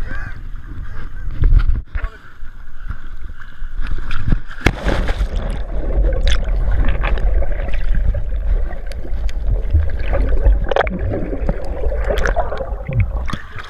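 River water sloshing and gurgling around a camera carried at and below the surface, heard muffled underwater, with a heavy low rumble and scattered small knocks and splashes.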